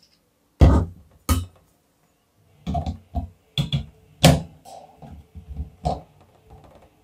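Irregular sharp clicks and knocks from handling a wall fan's wire rear guard and plastic parts while the guard is fitted over the motor housing, the loudest knocks about a second in and near the middle.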